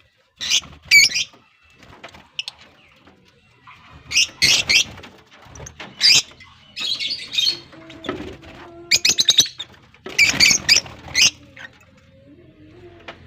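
Lovebirds chirping in repeated shrill, warbling bursts with short pauses between them.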